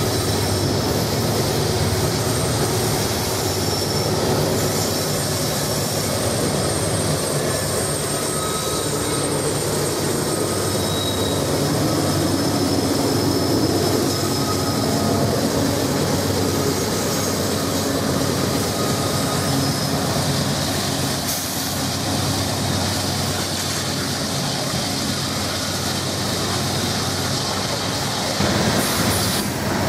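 Diesel-hauled freight train passing close by: the locomotives' engines grow loudest about halfway through as they go past, then the coal hopper cars roll by with a steady rumble and clatter of wheels on the rails.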